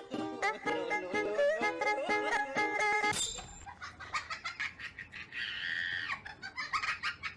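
Background music: a melody of stepping notes that changes abruptly about three seconds in and carries on with a regular beat.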